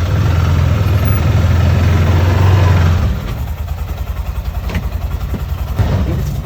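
Arctic Cat side-by-side's engine running hard as the machine pushes snow with its front blade, louder for about the first three seconds, then easing off.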